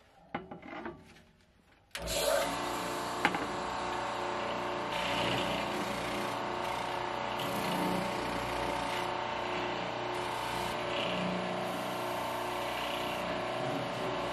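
Benchtop oscillating spindle sander starting up about two seconds in and then running steadily, with the sanding drum rasping intermittently as a plywood edge is pressed against it to smooth curved half-circle notches.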